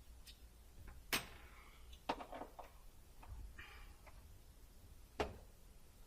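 A few sharp clicks and knocks of hands working on equipment: one about a second in, one near two seconds followed by a short clatter, and one near five seconds, with faint rustling between.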